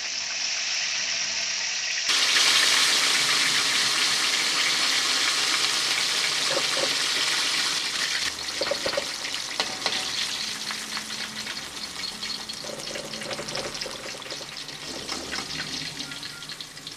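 Food frying in hot oil. A loud, dense sizzle starts suddenly about two seconds in, then thins into a crackle of many small pops that slowly quietens.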